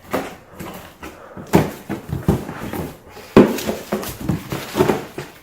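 A cardboard shipping box being opened by hand: irregular rustling, scraping and tearing of the cardboard and tape, with sharper knocks about a second and a half in and again near the middle.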